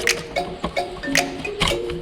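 Background music: short melodic notes over a light percussive beat, with a sharp hit about every half second.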